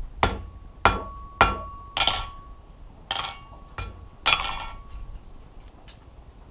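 Hand hammer striking a small homemade jog tool set over a hot tong rein on an anvil: about seven ringing blows roughly half a second apart, with a short break after the fourth. They set the offset (jog) in the rein so both halves of the tongs line up.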